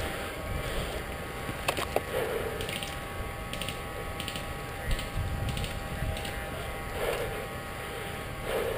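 Footsteps crunching through leaf litter and twigs, with brush rustling and scraping past the camera and a low handling rumble. There are two sharp clicks about two seconds in.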